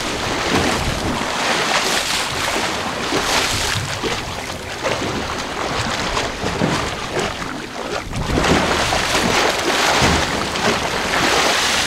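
Wind buffeting the microphone over the wash of the sea around a small fishing boat.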